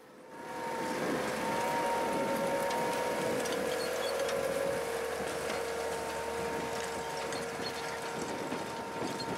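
Tractor running steadily as it pulls a Samco maize seeder that lays plastic mulch film, with a steady whine over the machinery noise; the sound fades in over the first second.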